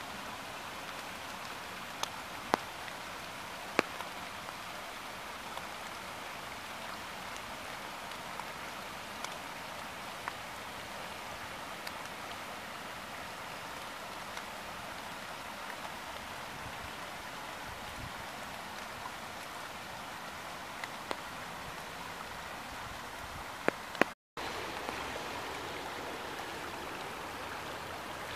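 Rain-swollen creek running steadily, an even rushing hiss of water over rocks. A few sharp clicks stand out, three in the first four seconds and two near the end, and the sound drops out for a moment near the end before the water resumes.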